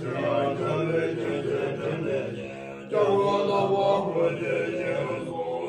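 Tibetan Buddhist monks chanting a puja liturgy. The voices dip for a moment about two seconds in, then come back suddenly and louder near the three-second mark.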